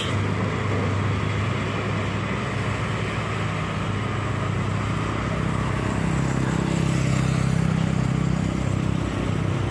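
Road traffic: engines of slow-moving loaded trucks and passing motorcycles, a steady drone with an engine note that grows louder between about six and nine seconds in.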